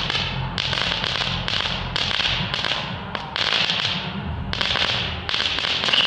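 Small ground firework fizzing and spitting sparks in a string of hissing spurts, seven or eight of them, each starting sharply and dying away.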